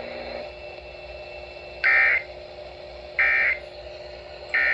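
Emergency Alert System end-of-message data burst: three short, harsh digital tone bursts about a second apart over a steady radio hiss, the code that closes the tornado warning broadcast.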